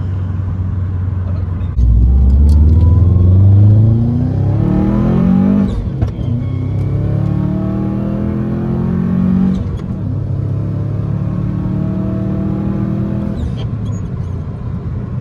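Turbocharged EJ20X 2.0-litre flat-four in a 2011 Subaru WRX hatchback, heard from inside the cabin, making a hard pull during a tuning run. The engine gets louder about two seconds in and climbs in pitch, drops at a gear change near six seconds, climbs again, then eases off about ten seconds in.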